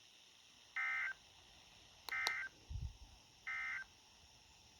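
Three short bursts of warbling Emergency Alert System SAME data tones, about 1.3 seconds apart: the end-of-message code that closes the warning broadcast. Two sharp clicks come at the start of the second burst, and a low thump just after it.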